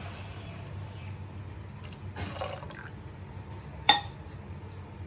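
Milk poured into tea simmering in an aluminium saucepan, with liquid splashing and bubbling. About four seconds in comes a single sharp clink with a brief ring, the loudest sound.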